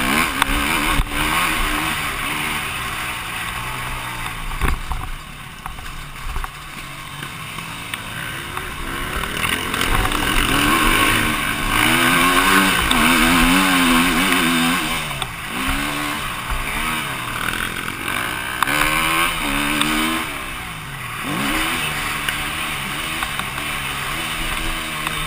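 KTM EXC-F 250's single-cylinder four-stroke engine being ridden hard, revving up and down over and over with throttle and gear changes. It eases off for a few seconds about five seconds in, then pulls hardest around the middle.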